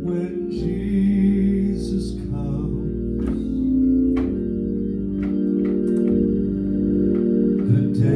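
Hammond organ playing sustained gospel chords, with short sharp percussive ticks over them every second or so.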